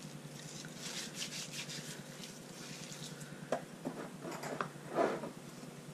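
Hands rubbing salt into raw horse-meat ribs: gritty, scratchy rubbing strokes, with a few louder handling strokes about three and a half and five seconds in.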